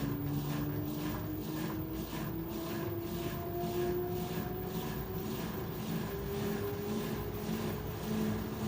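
LG 13 kg washer-dryer accelerating in its spin cycle. The drive's whine climbs steadily in pitch over a rhythmic swish of the turning drum, about two beats a second.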